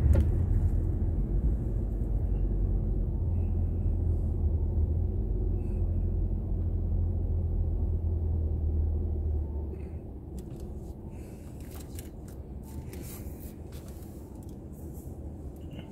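Car road and engine noise heard from inside the cabin: a steady low rumble while rolling slowly, which drops off about ten seconds in as the car comes to a stop, leaving a quieter idle with a few faint clicks and rustles.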